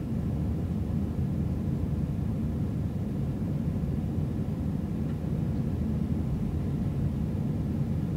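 Steady low rumble of engine and airflow noise inside a jet airliner's cabin during the climb after takeoff.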